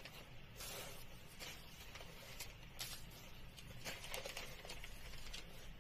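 Chinese calligraphy brush stroking across paper: several short, faint swishes and soft brushing sounds, over a low steady hum.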